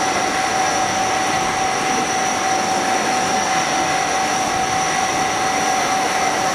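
CNC machine cutting a metal part under flood coolant: a steady machining whine from the spindle and cutter over the hiss of coolant spraying.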